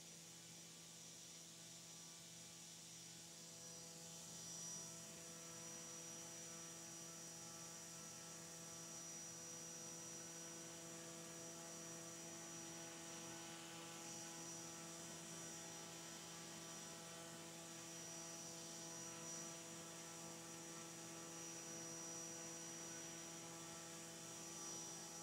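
Drone-scale propeller on a brushless motor turning steadily at about 5,000 RPM on a thrust test stand: a faint, steady hum with a thin high whine above it.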